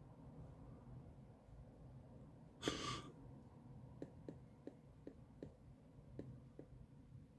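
Faint, muffled rumble of traffic heard from high above a road junction. About three seconds in there is one short breathy hiss, and after it a run of soft clicks, roughly two or three a second.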